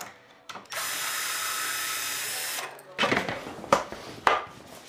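Cordless impact driver running steadily for about two seconds as it drives a screw into a metal furniture frame, then stopping. After it, a few sharp knocks from wooden chair parts being fitted together.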